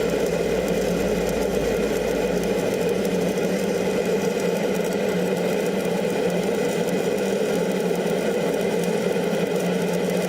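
Electric arc welding: a steady, loud crackle and buzz from a stick-welding arc burning along the work.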